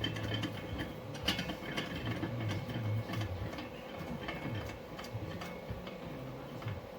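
A bench vise and its welded steel stand being worked by hand, with irregular metal clicks and scraping as the vise is handled and its sturdiness is tested.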